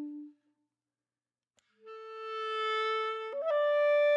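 Background music: a wind instrument playing long held notes. One note fades out just after the start, then after about a second and a half of silence a new held note comes in and steps up to a higher one.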